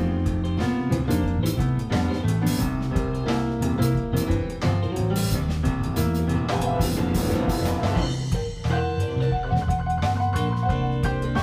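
A blues band jamming an instrumental passage: a drum kit keeps a busy beat under guitar and a moving low bass line. The drumming thins out for a moment about eight seconds in.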